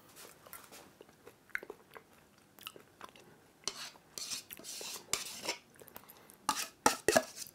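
A spoon clicking and scraping against a small bowl as sour-cream and bacon sauce is scooped out, then mouth and chewing sounds as it is tasted from the spoon. A few sharp clicks cluster near the end.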